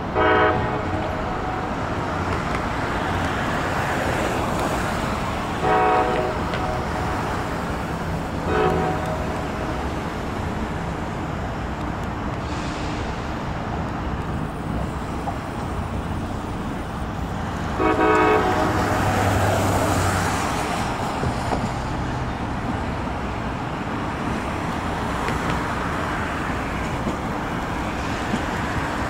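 Passenger train horns sounding four blasts over a steady rumble of trains and traffic. The first, about a second long, comes at the very start, another around six seconds in, a short one near nine seconds, and a longer one about eighteen seconds in.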